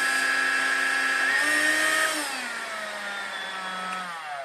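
AEG cordless stick vacuum's motor running with a steady high whine. About a second in the pitch steps up briefly, then the whine falls steadily in pitch and gets quieter as the motor winds down after being switched off.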